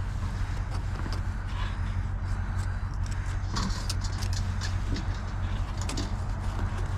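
A vehicle engine idling steadily, with scattered clicks and clinks of tie-down strap hooks being handled.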